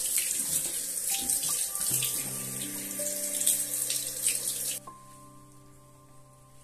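Handheld shower head spraying water over a small puppy's fur, a steady hiss that cuts off suddenly about five seconds in. Soft background music with held notes plays underneath throughout.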